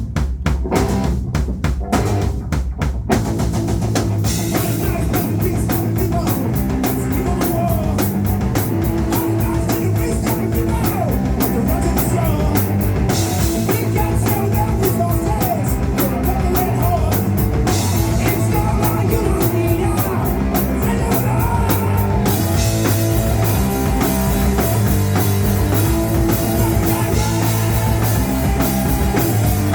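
Live punk rock band playing: drums alone for the first few seconds, then guitars and the rest of the band come in and play loud and steady.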